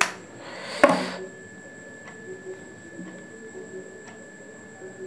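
Two sharp clicks about a second apart, the second louder, from a spring-loaded lancing pen pricking a fingertip for a blood sugar test. Faint small ticks follow.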